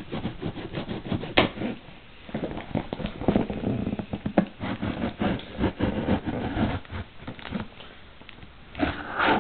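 Unboxed packaging and items being rummaged through by hand: irregular rustling, scraping and light knocks, with one sharp click a little over a second in.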